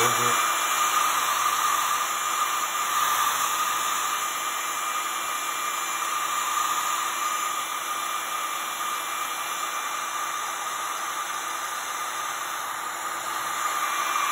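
Handheld hair dryer running steadily, a rush of air with a high motor whine. It spins up at the very start, then holds steady.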